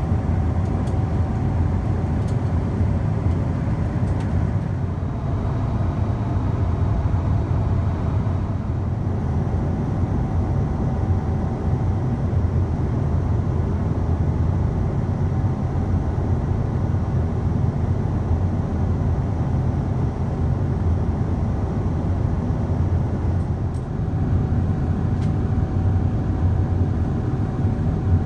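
Steady cabin noise of a Boeing 777-200ER at cruise: a low rumble of airflow and engines, with a faint steady hum-like tone above it.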